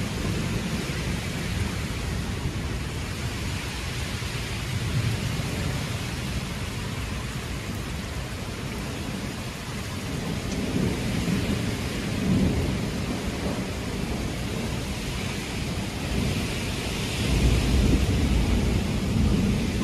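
Thunderstorm: steady heavy rain with low rumbles of thunder, swelling about halfway through and loudest near the end.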